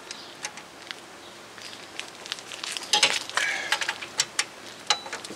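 Metal clicks and clinks of a socket and extension working the bolts of a rear wheel hub assembly, loosened one by one, with a quick run of clicking about three seconds in.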